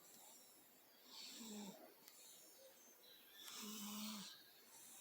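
A cat snoring in its sleep: two faint snores about two and a half seconds apart, each a short low buzzing note with a breathy hiss.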